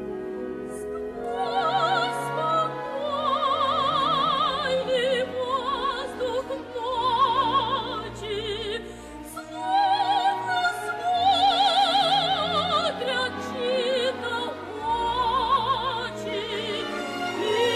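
Operatic soprano singing with wide vibrato over an orchestra, entering about a second in over sustained strings.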